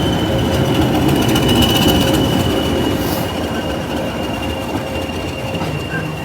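Train moving slowly along the rails with a steady high-pitched wheel squeal over the rumble of the carriages, growing a little quieter in the second half.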